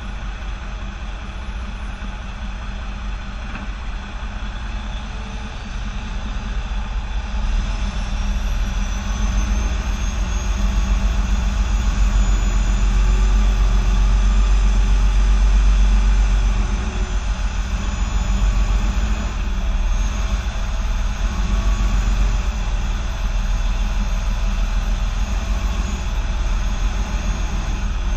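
Semi-truck diesel engine running at low revs as the tractor backs a trailer, with a deep steady rumble. It grows louder from about six seconds in as the throttle is opened, then eases off a little past the middle.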